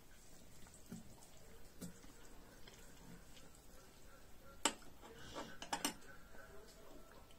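Quiet clinks of a metal fork and spoon against a large iron wok while picking at braised chicken: a few light taps, one sharper clink a little before the five-second mark, and a quick run of clicks about a second later.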